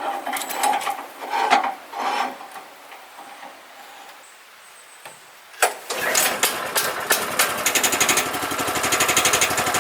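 A few knocks and clunks in the first couple of seconds. About six seconds in, the 9.5 hp gasoline engine of a Woodland Mills HM122 sawmill starts with a sharp clatter and settles into a steady, rapid running beat.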